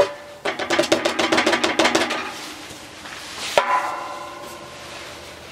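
Wood pellets poured from a plastic cup into a sheet-metal wood stove's firebox, a quick clattering rattle with a metallic ring for about two seconds. About three and a half seconds in comes a single clank against the stove's steel, which rings briefly.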